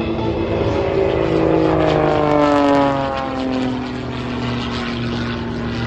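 A propeller airplane's engine passing by, getting louder and then dropping in pitch as it goes past, about three seconds in.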